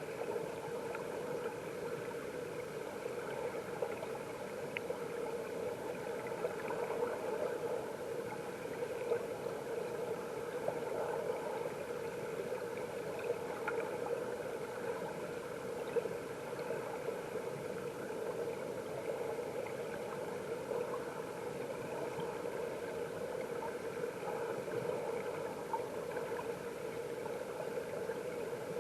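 Valley stream water flowing and gurgling, heard underwater: a steady, muffled rush with small scattered ticks.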